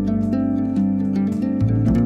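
Background music: a gentle plucked-string tune over held bass notes, the bass changing about one and a half seconds in.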